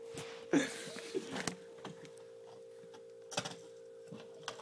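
Toy RC car knocking against the torn cardboard core of a broken hollow-core door: a few scattered clicks and knocks, the loudest about half a second in and another near three and a half seconds, over a faint steady hum.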